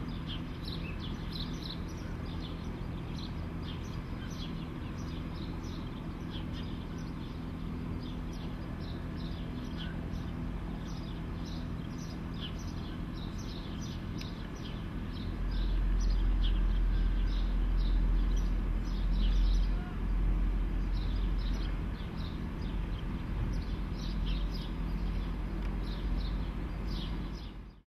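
Small birds chirping over and over in short calls, over a steady low hum. About halfway through, a deep low rumble comes in and stays loud until the sound cuts off suddenly near the end.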